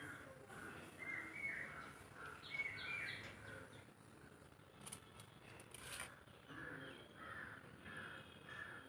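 Faint birds calling outdoors, short repeated chirping calls a few times a second, with two sharp clicks about five and six seconds in.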